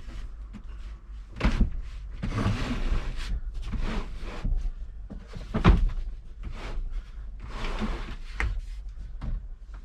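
A wooden bench seat made of OSB board being pulled out into a flat bed inside a van: a series of knocks and thuds, with scraping as the boards slide, and loud knocks about a second and a half in and again near the middle.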